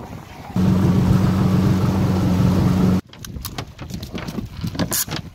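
A boat's outboard motor running steadily with wind and water noise, loud, starting about half a second in and cut off suddenly about three seconds in. After it come quieter scattered clicks and knocks.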